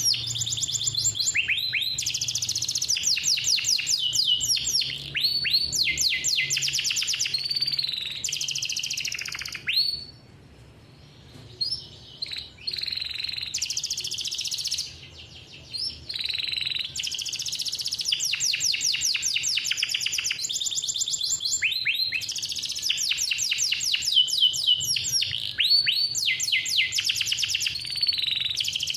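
Male canary singing a long song of fast rolling trills, each run a rapid string of repeated notes, the runs changing pitch and pattern. It breaks off briefly twice, about ten and fifteen seconds in.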